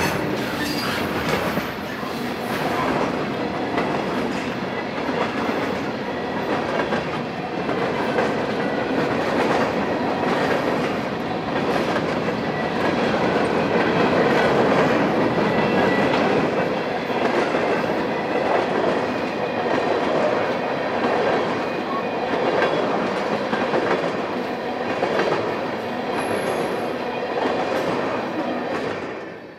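Freight cars rolling past on steel wheels, a steady rumble with the click of wheels over rail joints. It dies away near the end as the last car goes by.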